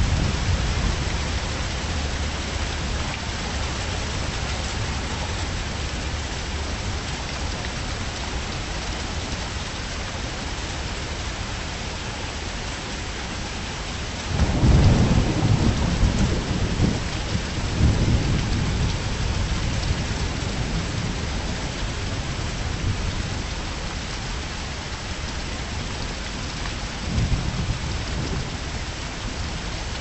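Steady heavy rain with rolling thunder: a loud deep rumble comes in about halfway through and rolls on for several seconds, and a shorter rumble follows near the end.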